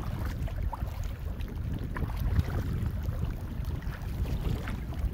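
Wind buffeting the microphone in a steady low rumble, with light splashes of feet wading through shallow sea water.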